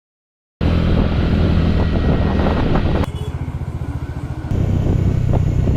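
Scooter engine running as it is ridden, starting about half a second in after a moment of silence. The engine note pulses unevenly for a second or so midway, then runs steady again.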